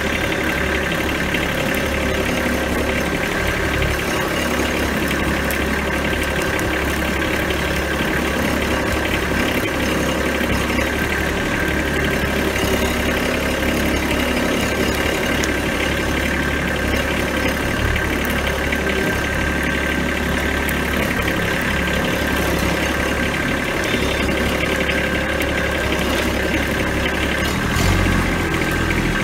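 Compact farm tractor's engine running steadily, heard from on the machine, with its note shifting and getting louder just before the end.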